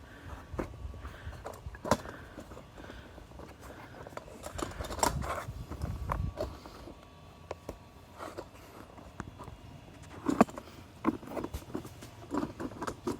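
Scattered light clicks, knocks and scrapes with footsteps, from the camera being carried and handled, with a small cluster of knocks near the end.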